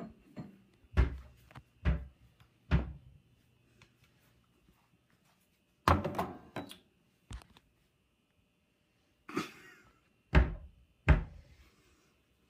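Thuds and knocks from kitchen cupboard doors and dishes being handled while a bowl is fetched. There are three sharp hits about a second apart, a cluster of knocks after a pause, and two more hits near the end.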